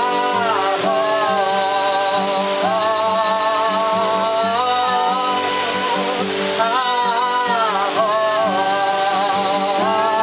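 A voice singing long held notes with a wavering vibrato, over steady low sustained tones and the even rush of a waterfall.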